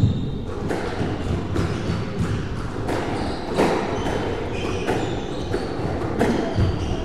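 Squash rally: the ball strikes racket strings and the court walls, making sharp knocks about once or twice a second. Short shoe squeaks on the wooden floor come in between.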